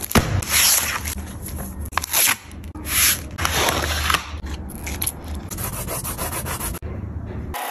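Oil pastel rubbing across paper: scratchy strokes about a second apart, then lighter, quicker scratching with small clicks in the second half.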